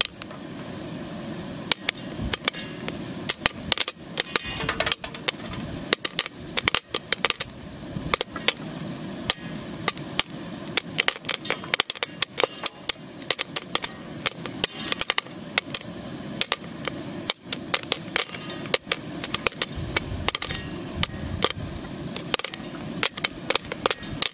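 Popcorn kernels popping in a metal pan: many sharp pops in quick, irregular succession over a steady background noise.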